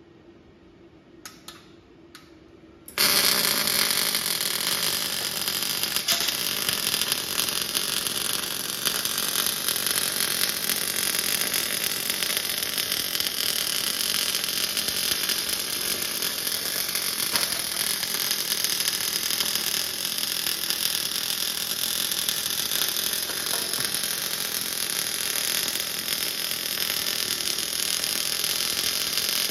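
A few faint clicks, then about three seconds in a MIG bore welder strikes its arc and runs steadily, welding round inside the bore.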